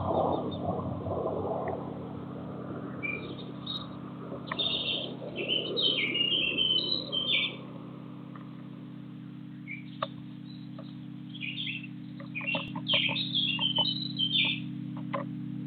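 Small garden birds chirping in quick clusters of short high notes, one group a few seconds in and another near the end, with a few sharp clicks among them. A steady low hum runs underneath.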